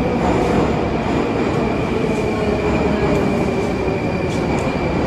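Moscow Metro train running along the platform track: a steady rumble with a thin, high, steady whine held above it.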